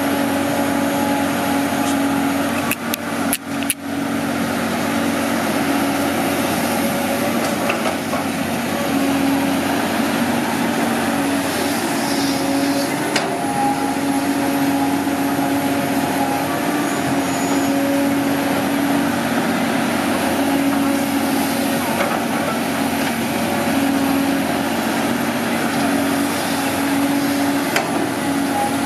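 Caterpillar 320D excavator's six-cylinder diesel engine running steadily under work while loading soil, a constant drone with a few brief dips in level about three seconds in.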